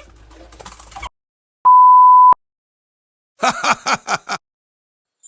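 An edited-in electronic bleep: one loud, steady, pure tone about two-thirds of a second long, set in dead silence. About a second and a half later comes a quick run of about six short sound-effect hits.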